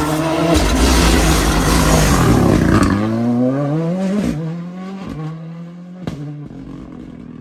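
Ford Fiesta Mk2 R5 rally car's 1.6-litre turbocharged four-cylinder engine at full throttle as the car comes up close, then accelerating away with rising engine pitch, a gearshift about four seconds in, and the sound fading with two short sharp cracks near the end.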